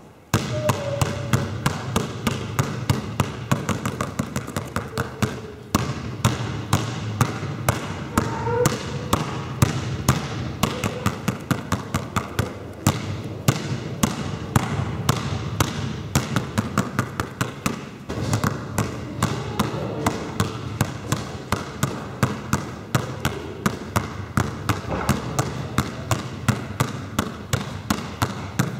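Basketballs dribbled hard on a sports-hall floor, mostly two balls at once, making a fast, steady run of bounces that echo in the large hall.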